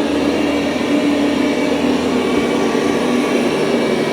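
Dreame L20 Ultra robot vacuum running on carpet with its suction boosted to carpet mode: a steady whirring rush with a constant low hum.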